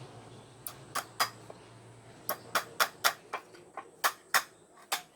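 A series of sharp knocks or taps, a few scattered ones at first, then coming faster at about three a second from about two seconds in.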